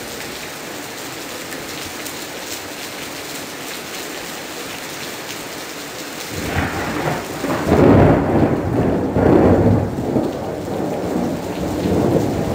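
Torrential rain mixed with hail hissing and pattering steadily. About halfway through, a loud roll of thunder comes in, loudest a couple of seconds later, and keeps rumbling to the end.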